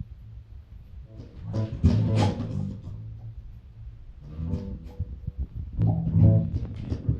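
Live band playing an instrumental passage with guitar and bass, coming in softly in short phrases and growing louder near the end.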